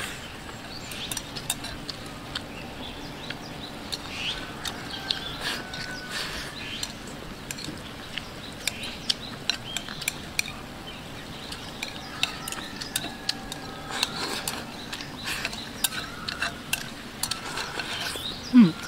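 Someone eating close to the microphone: chopsticks clicking repeatedly against a bowl, with chewing and slurping mouth sounds. A brief hum-like voiced sound comes near the end.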